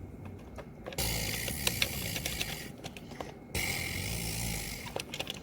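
A small battery-powered toy buzzing and whirring in two stretches: the first about two and a half seconds long, the second a little over a second, with light plastic clicks.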